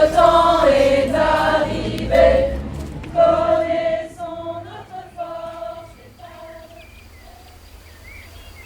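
Choir of women singing together in unison, in soft, held notes, fading away about halfway through.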